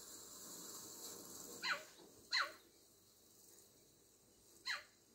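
Cheetah chirping to call its cubs together: three short, high chirps, each falling in pitch, two close together and one near the end.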